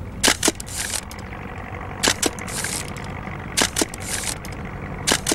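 Medium-format camera shutter firing four times in a row, each release a quick double click, about one every one and a half seconds, over a steady low rumble.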